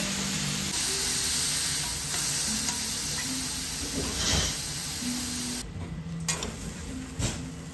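Steak cubes sizzling on a hot teppanyaki griddle: a steady hiss that falls away suddenly about five and a half seconds in, followed by two light clicks.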